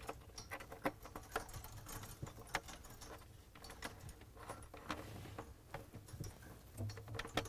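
Faint scattered clicks and rustling as a thermistor wire harness is pulled and handled through an opening in a refrigerator's plastic back panel.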